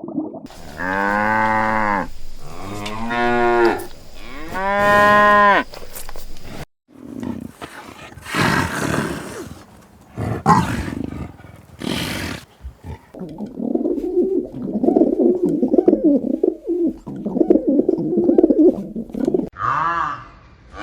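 Cattle mooing: three long calls, one after another, in the first six seconds. Other mixed farm-animal noises follow after a break.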